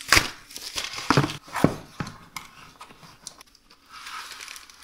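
Plastic wrapping and packing tape crinkling and tearing as a small cardboard package is pulled open, in a series of sharp irregular rips, loudest in the first two seconds, with softer rustling toward the end.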